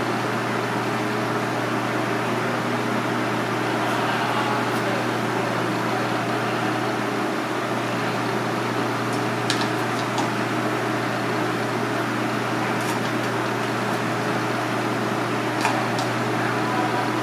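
Steady whirring hum of kitchen ventilation machinery, with a few light clicks as food is laid on a plate of crushed ice, twice in quick pairs about halfway through and near the end.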